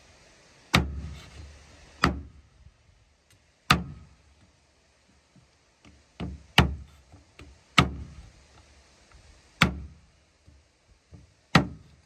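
Meat cleaver chopping raw meat on a wooden cutting board: about eight sharp, separate chops at uneven intervals of one to two seconds, two of them close together past the middle, with small knife ticks in between.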